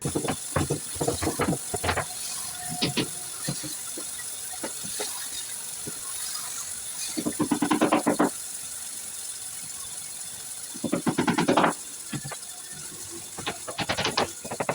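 Scattered knocks and taps of tool work on wood over a steady hiss, with two runs of rapid clicking about a second long, one around the middle and one a few seconds later.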